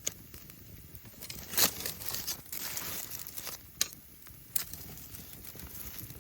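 Rustling and crinkling, broken by a few sharp clicks or snaps.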